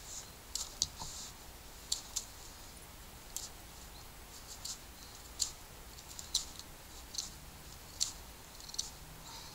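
Pathfinder Scout knife blade shaving a wooden stick: short, crisp scraping strokes at an uneven pace, about one or two a second.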